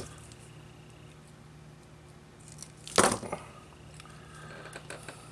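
Small tools being handled at an electronics repair bench: one sharp clack about three seconds in, then a few lighter clicks near the end, over a faint steady hum.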